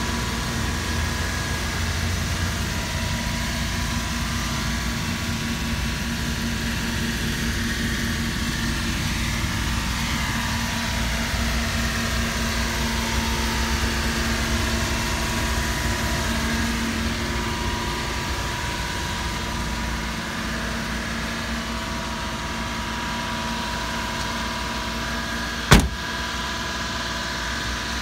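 Mitsubishi Minicab kei truck's small engine idling steadily, with a single sharp knock near the end.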